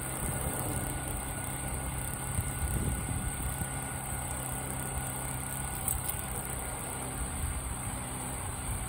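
Motorcycle engine running steadily at cruising speed, with wind buffeting the microphone.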